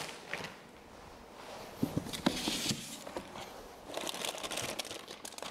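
Plastic packaging rustling and crinkling as a bagged item is handled in a cardboard box, with a few light knocks. It comes in two spells, about two seconds in and again around four seconds in.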